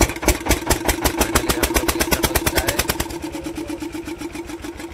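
Motor scooter's small engine just started on the self-starter and idling, an even rapid putter of about nine beats a second over a steady hum.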